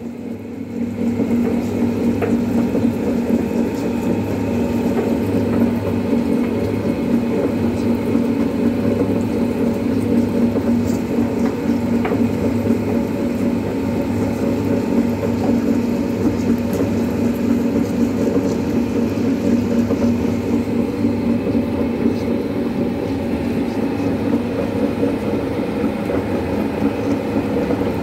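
Motorised rotary oil mill grinding sesame seeds, a pestle turning in the drum with a steady machine hum and low grinding rumble that does not change.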